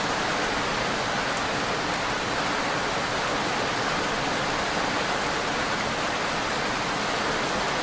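Rain falling steadily: an even hiss that doesn't change or break.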